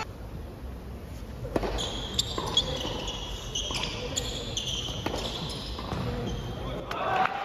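Doubles tennis rally on an indoor hard court: racket strikes on the ball every second or so, with sneakers squeaking as the players move. A voice starts near the end.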